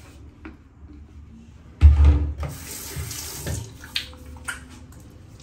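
A sudden thump about two seconds in, then a sink tap running for about two seconds, followed by a couple of light clicks.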